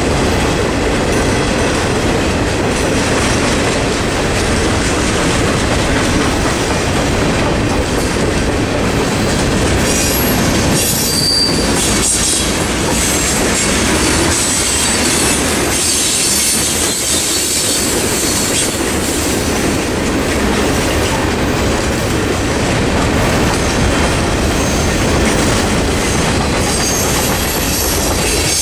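Freight cars of a passing CSX mixed freight train rolling by at close range: a steady loud rumble with wheel clatter on the rails, and high wheel squeal now and then, about a third of the way in and again past the middle.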